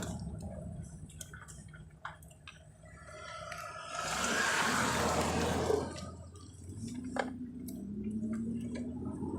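Cab noise of a moving pickup truck: low engine and road rumble, a loud rushing noise for about two seconds midway, then the engine hum rising slightly in pitch as it speeds up, with a few small clicks and knocks.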